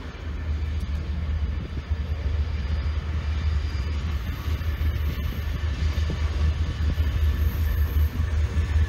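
Diesel locomotives of a KiwiRail freight train, a DL-class unit leading two DFB-class units, running as they approach. Their deep engine rumble grows louder as the train nears.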